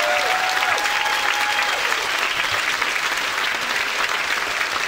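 Large audience clapping steadily, with a few long cheering shouts in the first two seconds.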